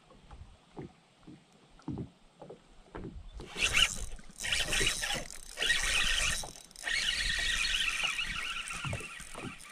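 Fabric of a shirt sleeve brushing and rubbing right against the action camera's microphone: a loud, scratchy rustle in several bursts starting about three seconds in, after a few soft scattered clicks.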